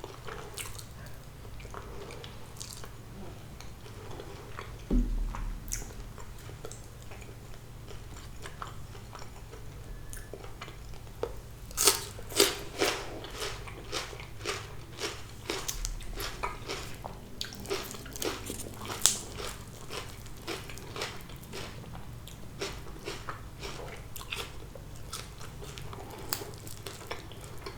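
Close-miked chewing and crunching of crisp fried sea bass, with bursts of sharp crunches, thickest in the middle, and a low thump about five seconds in.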